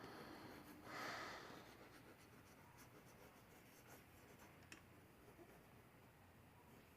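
Faint pencil sketching on printer paper: one louder scratchy stroke about a second in, then light scratching with a small tick near the end.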